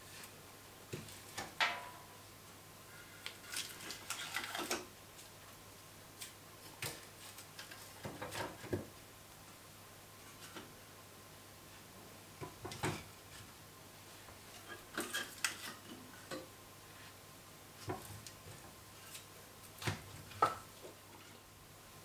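Split firewood logs being lifted from a metal log rack and stacked into an unlit fireplace: irregular wooden knocks and clunks of log on log, a dozen or so, the sharpest near the end.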